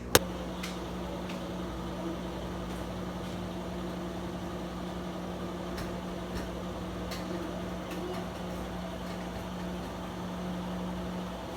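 Washing machine running, a steady motor hum with a few faint ticks.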